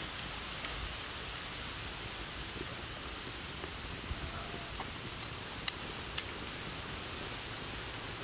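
Steady background hiss with a few sharp, brief clicks of biting and chewing as meat is pulled off a piece of cooked snake; the loudest click comes a little past halfway.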